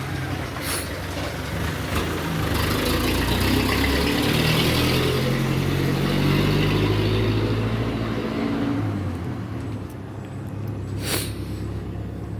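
Volvo engine running, revved up for several seconds and then easing back, with a sharp click about eleven seconds in. The engine is being checked for a knocking sound.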